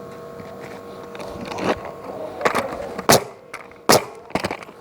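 Hands at work on asphalt ridge cap shingles on a roof: rustling and scraping, then two sharp, loud knocks about a second apart near the end, followed by a few lighter clicks.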